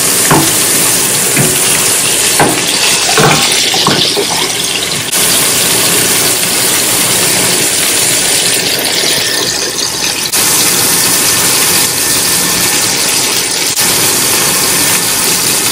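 Fish curry boiling in a wide pan on a gas stove, a loud steady bubbling hiss, with a few soft pops in the first few seconds as the pan is swirled.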